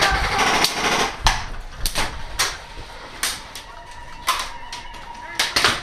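Airsoft gunfire: irregular single sharp cracks, about ten over a few seconds, with several close together near the end.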